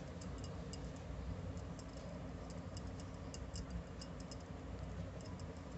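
Faint, irregular small clicks of a 3 mm crochet hook working woollen yarn through treble crochet stitches, over a low steady background noise.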